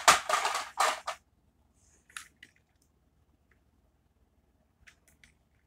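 Handling noise: about a second of rustling in several quick bursts, then a few faint light clicks and taps as a small diecast model car is handled and picked up.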